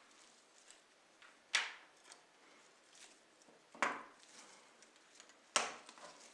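Three sharp taps, about two seconds apart, with faint clicks and scraping between them: small hard parts or tools being handled and set down on a work surface.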